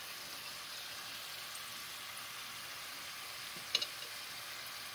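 Oliebollen fritters deep-frying in a pot of hot oil: a steady sizzle, with one brief click about three-quarters of the way through.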